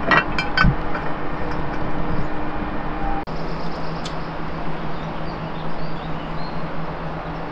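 A metal lid lifter clinking against the coal-covered lid of a cast iron Dutch oven a few times just at the start as the lid is lifted off. Steady outdoor background noise follows.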